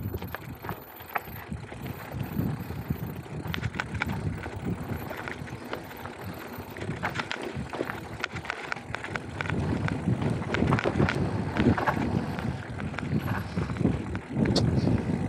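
Mountain bike riding down a rocky dirt trail: tyres crunching over gravel and loose stones, and the bike rattling with short clicks and knocks over the bumps. It gets louder about two-thirds of the way through.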